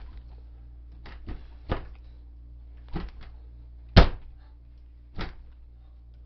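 Sharp metal knocks on a door hinge, a hinge pin being driven up and out with a screwdriver, about six strikes at uneven spacing with the loudest about four seconds in.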